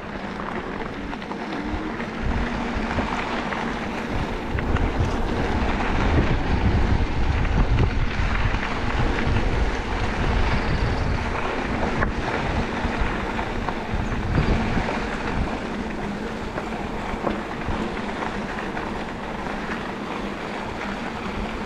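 Wind buffeting the microphone of a camera on a moving enduro e-bike, a heavy, steady rumble with small scattered knocks from riding the trail.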